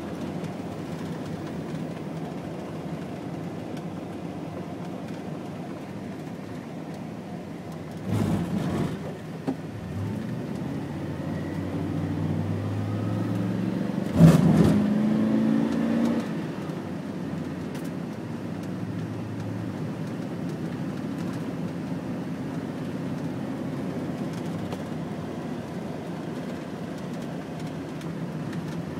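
Steady road and engine noise heard inside a moving car's cabin. It gets louder twice: briefly about eight seconds in, then with a sharp onset about fourteen seconds in followed by a pitched hum for about two seconds.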